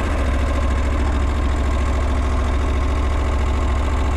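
Husqvarna Norden 901's 889 cc parallel-twin idling steadily just after a cold start, with a metallic clattering that sounds like metal on metal. The rider calls this clatter normal for this engine and says it is worse when cold and when the engine is not yet broken in.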